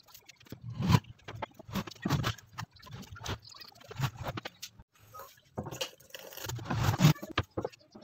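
Wooden box pieces being handled on a work surface: scattered knocks, taps and scrapes of wood set down and pressed together.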